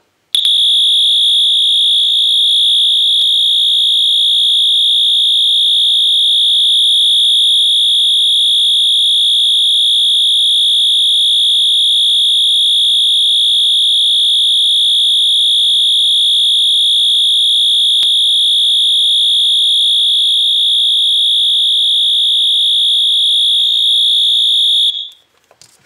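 Wheelock MT24-MCW multitone fire alarm horn sounding its continuous horn tone, a loud, steady high-pitched electronic tone. It starts just after the beginning and cuts off suddenly about a second before the end.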